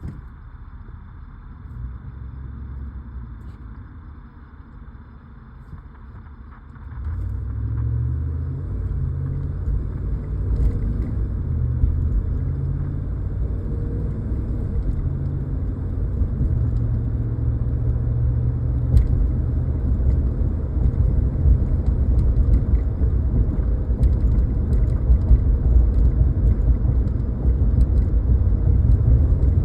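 Pickup truck running with a low-pitched rumble that gets suddenly louder about seven seconds in and stays loud. It carries an unidentified noise the owner wants diagnosed.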